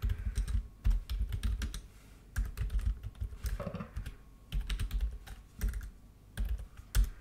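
Typing on a computer keyboard: bursts of quick key clicks with short pauses between them.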